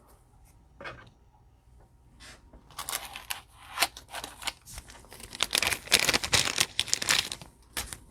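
Trading-card pack wrapper being torn open and crinkled, in a run of rustling bursts starting about two seconds in, loudest near six seconds.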